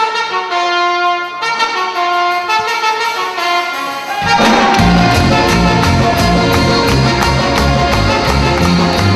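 Live band music: a trumpet plays a melody of held notes, then about four seconds in the drums and bass guitar come in and the full band plays on, louder.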